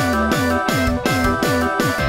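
Upbeat background music with a fast, steady beat of about four strokes a second under sustained tones.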